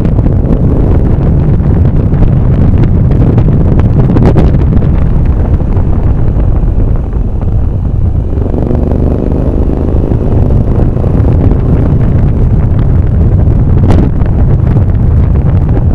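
Heavy wind rumble on the microphone from a vehicle travelling at speed, with the engine note showing through for a couple of seconds around the middle.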